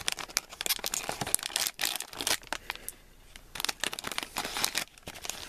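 A shiny plastic blind bag being torn open and crinkled by hand: irregular crackling and tearing, with a quieter pause about halfway through.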